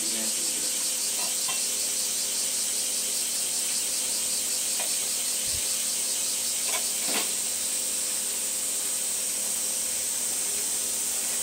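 Cicadas calling in a continuous, steady shrill buzz, with a few faint short ticks now and then.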